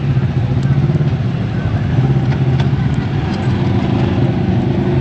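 Off-road vehicle engine running steadily on the move, with a low, even drone.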